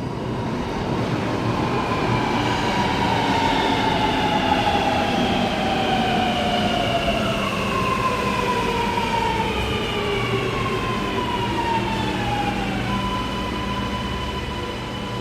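Alstom Metropolis metro train pulling in and braking to a stop. Its electric traction motors whine in several tones that glide down in pitch over a steady rumble, then settle into an even hum near the end as the train halts.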